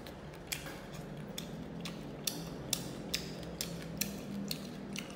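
Close-up chewing of crispy fried small fish, bones and all: a run of sharp, irregular crunches, about two or three a second.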